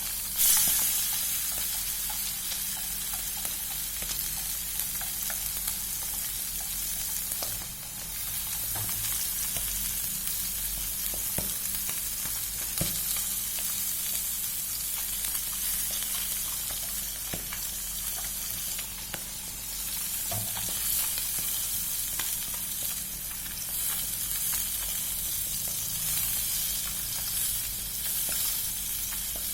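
Food frying in hot oil: a steady, high-pitched sizzle, with a sudden louder surge of sizzling about half a second in and a few light ticks and pops.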